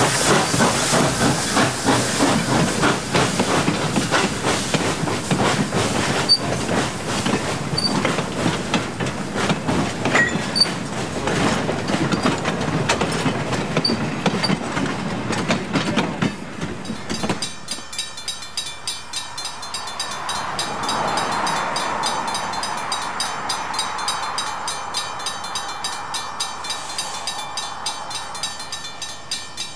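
Pennsylvania Railroad 643 steam locomotive and its train passing close by: steam hissing and wheels clicking over the rail joints as the cars go by. About two-thirds of the way through the sound changes to the train heard farther off, with a grade-crossing bell ringing in a steady, even rhythm.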